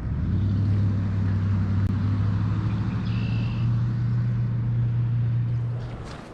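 A motor engine running with a steady low hum; it rises slightly in pitch about three seconds in and fades away near the end.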